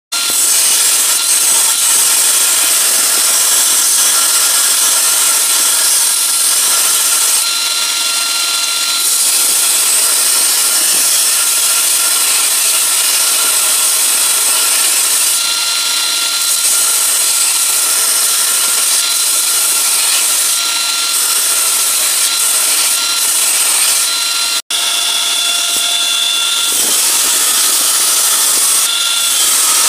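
Belt grinder running, with a steel knife blade cut from a plow disc pressed against the abrasive belt to grind its edge bevel: a steady, loud grinding hiss with a thin steady whine. It breaks off for an instant once, about 25 seconds in.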